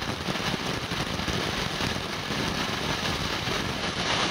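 Brothers Fireworks Krakatoa ground fountain burning, a steady, even rush of spraying sparks.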